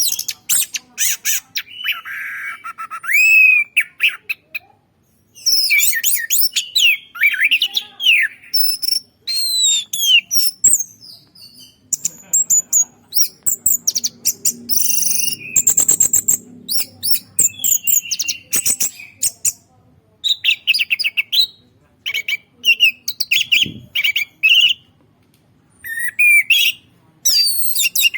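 A songbird singing a long, varied song of quick whistles, rapid trills and chattering phrases, delivered in bursts with short pauses.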